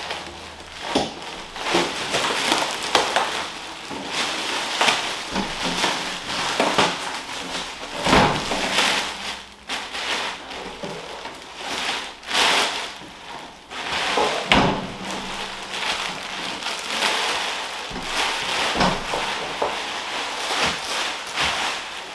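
Clear plastic bag crinkling and rustling as an air fryer oven is pulled out of it, with a few dull knocks from the oven being handled.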